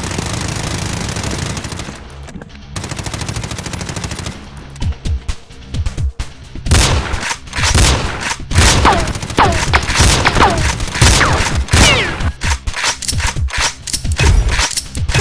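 Gunfire sound effects: a burst of rapid automatic fire at the start, then from about halfway a dense run of separate shots with several short falling whistles among them.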